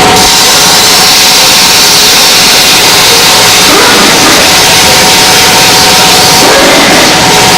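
Steam cleaner spraying a steady jet of steam that hisses for about six seconds and then stops, over a steady machine hum.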